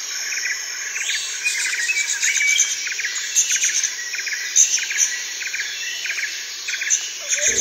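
Birds chirping in short, quickly repeated bursts, over a steady high-pitched insect drone.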